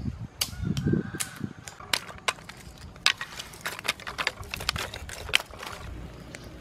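Dry sticks clicking and clattering against each other and the stones as they are stacked into a fire lay, an irregular run of sharp knocks with a duller thump about a second in. Near the end the knocks give way to a low steady rush.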